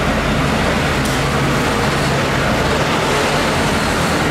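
Steady mechanical hum under a constant hiss, with no change in level.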